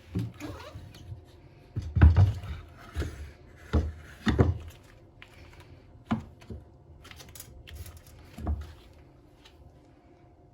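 Irregular knocks and thumps of objects being handled and set down, about seven in all, the loudest about two seconds in.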